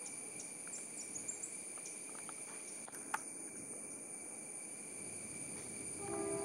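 Steady high-pitched insect drone from the forest, with a few short bird chirps in the first second and a half. About six seconds in, a train horn begins to sound as a train approaches.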